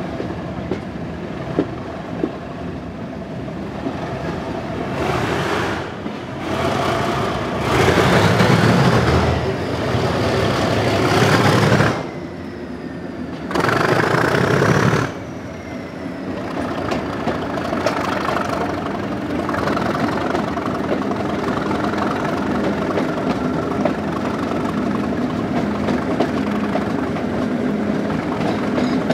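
Class 37 diesel locomotive's English Electric V12 engine working under power with a steady heavy drone, broken in the first half by several loud surges of rushing noise lasting one to three seconds each. A faint whistle climbs in pitch in the middle.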